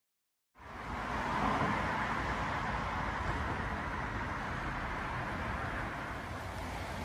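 Road traffic on a multi-lane city road: a steady wash of tyre and engine noise that cuts in suddenly about half a second in.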